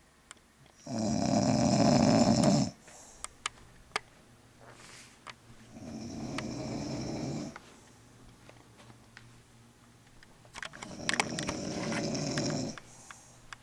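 A sleeping woman snoring: three long snores, each about two seconds long, about five seconds apart, the first the loudest.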